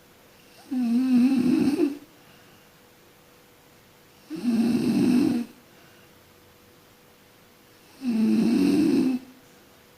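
A sleeping person snoring: three long snores about three and a half seconds apart, each a little over a second long, with quiet breathing pauses between them.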